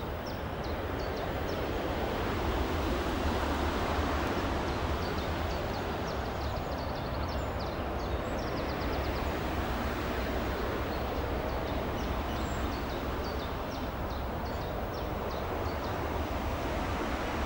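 Steady outdoor background rumble and hiss, with a bird singing runs of quick high chirps at the start, in the middle and again near the end.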